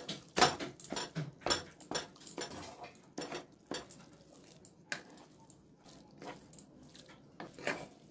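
Wooden spatula scraping and knocking against a metal kadhai while stirring and roasting soaked semolina in ghee. Irregular scrapes and clacks, most frequent and loudest in the first couple of seconds, then sparser.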